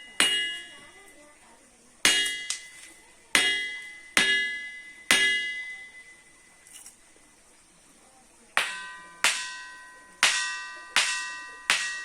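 A ringing stone being struck, about a dozen sharp clinks, each ringing on with a bell-like, fading tone. The first half-dozen strikes ring higher. After a pause of about three seconds, a second run of strikes rings at a lower pitch, as from another stone.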